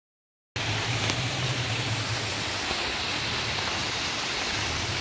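Silence for about half a second, then the steady rush of a waterfall and the stream running across the trail, with a low steady hum underneath.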